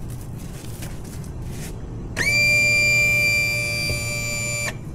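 Yamaha 115 outboard's power trim and tilt unit running as the motor is brought to level: a steady electric whine that starts sharply about two seconds in and stops after about two and a half seconds.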